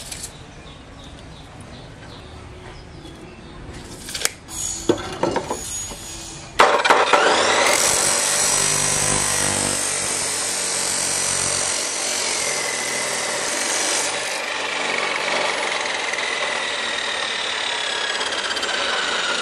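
A few knocks, then an abrasive chop saw starts about a third of the way in with a rising whine and cuts through a steel bar with a loud, steady grinding screech, its whine slowly falling in pitch as it cuts.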